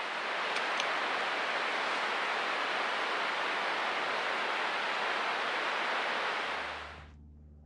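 Steady rushing water, an even hiss that fades out quickly near the end.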